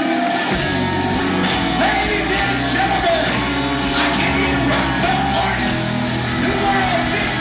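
A live rock band of many players with electric guitars, drums and keyboards, playing with singing. The bass and drums come in about half a second in and the full band carries on.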